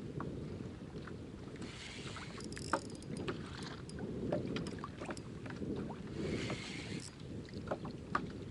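Wind buffeting the microphone over water lapping at a kayak, with scattered small clicks and knocks and two brief hissy splashes.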